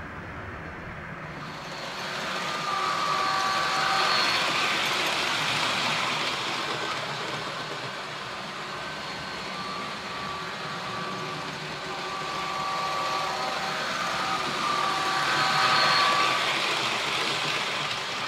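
Model train (a Rapido Amtrak F40PH locomotive with passenger cars) running on its track, the rolling noise swelling twice as it passes by. Several held tones come and go in short stretches throughout.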